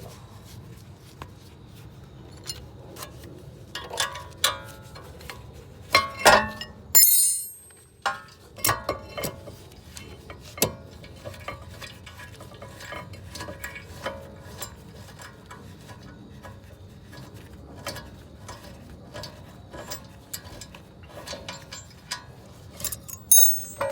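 Hand tools clicking and clinking against metal while the brake caliper bracket bolts are loosened and removed. Irregular knocks and clinks, with a louder cluster around five to seven seconds in.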